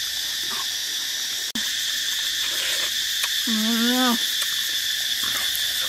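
Steady high-pitched drone of insects in the forest. A short, low call of about half a second sounds once, a little after the middle.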